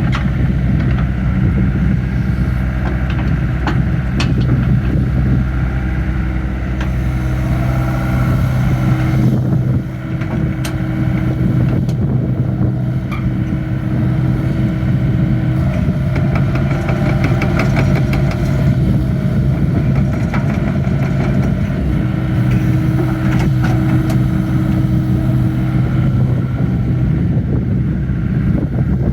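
Yanmar diesel engine of a John Deere hydraulic excavator running steadily while the machine is operated. A higher whine from the hydraulics comes and goes, with a few sharp clanks.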